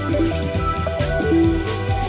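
Electronic background music with a steady beat, bass and short synth notes.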